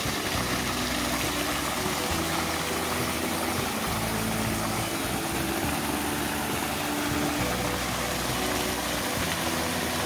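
Spring water flowing and splashing in a steady, even rush. Background music plays over it, with low notes changing about once a second.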